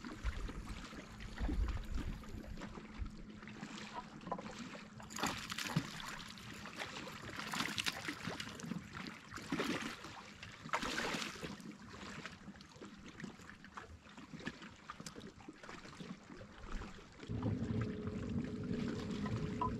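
Small waves lapping against a rocky lakeshore with wind, broken by several louder splashy rushes in the middle stretch. A steady low hum comes in near the end.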